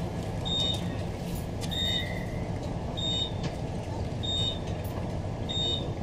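Short high beeps repeating about every 1.2 seconds, five times, from the open doorway of a Queensland Rail NGR electric train, over the steady low hum of the stopped train. The beeping marks the doors standing open at a station stop.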